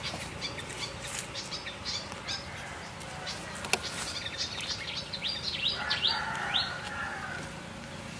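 Small birds chirping in many short, quick, falling calls, over the wet rustling and clicking of a scalded chicken's feathers being plucked by hand in a metal bowl.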